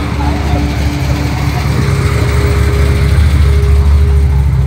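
A car engine running close by, a deep steady rumble that gets a little louder over the first few seconds, with live band music playing behind it.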